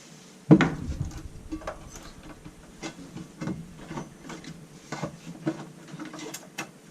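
Parts of a washing machine's clutch assembly knocking and clicking as they are handled and fitted into place. One loud knock comes about half a second in, followed by irregular lighter clicks and taps.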